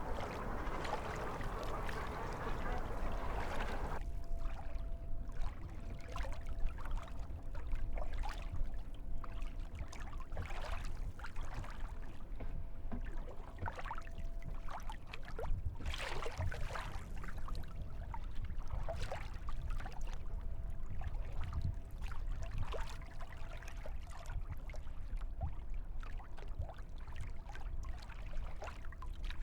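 Water splashing and lapping around a paddled kayak in short, irregular splashes, over a low rumble of wind on the microphone.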